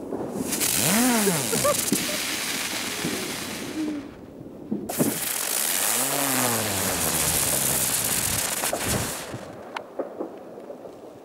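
Small novelty firecrackers spraying sparks on the snow, giving two long hissing bursts separated by a short pause. Each hiss carries a tone that rises and then falls near its start. A few sharp crackles follow near the end.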